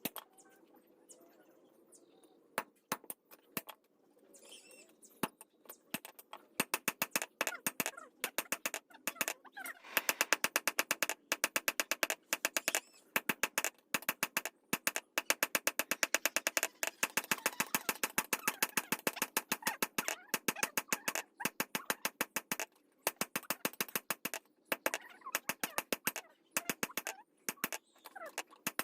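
Rapid hammer strikes in a workshop: a few scattered blows at first, then a steady run of several blows a second from about six seconds in.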